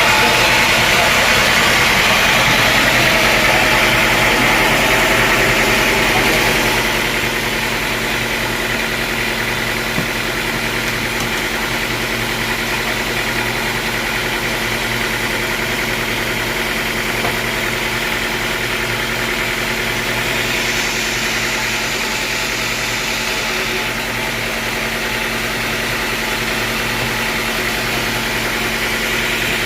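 Sawmill's engine running steadily. It is louder, with a stronger hiss, for about the first six seconds, then settles to a lower, even running sound.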